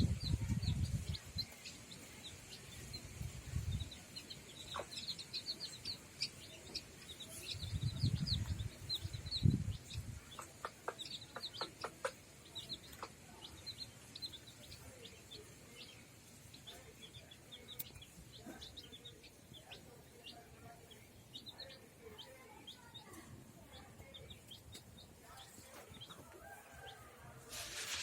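Young chicks peeping, with many short, high calls falling in pitch in quick succession, thinning out after about the first half. A few low thuds or rumbles are heard in the first ten seconds.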